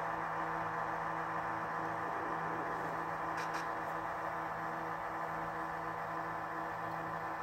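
HO-scale Atlas SD35 locomotive's Tsunami 2 sound decoder playing an EMD diesel engine at low throttle through the model's small speaker: a steady, even hum as the locomotive creeps along.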